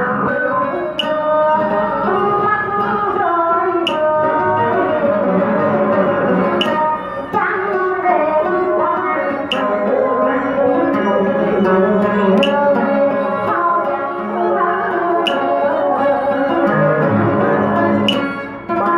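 A woman singing a Vietnamese song into a microphone over the house sound system, with instrumental accompaniment of plucked strings. A sharp percussion tick falls about every three seconds.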